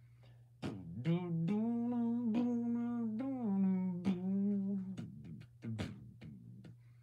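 A person humming a tune in long, held notes, with sharp clicks scattered between the phrases and a steady low hum underneath.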